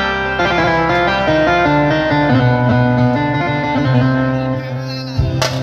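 Live band playing an instrumental melody on an amplified plucked-string instrument over a sustained bass note, with a sharp click near the end.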